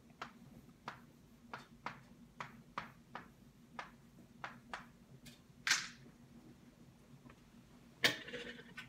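Chalk writing out a word on a chalkboard: a string of short, sharp taps about two a second, with a longer scratch about six seconds in and another near the end.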